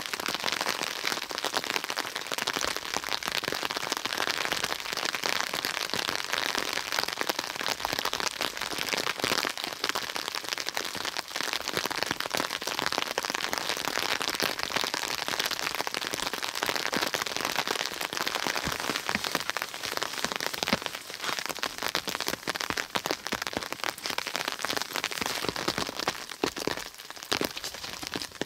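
Steady rain falling: an even hiss made up of many small drop impacts.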